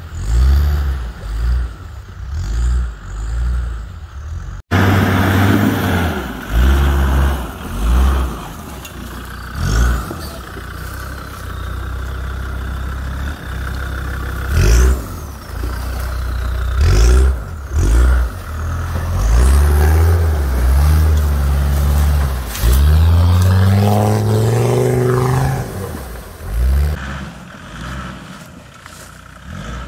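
Land Rover Discovery TD5's five-cylinder turbodiesel revving in repeated bursts, its pitch swinging up and down, with a long climb in revs about three-quarters of the way through. The sound jumps abruptly about five seconds in.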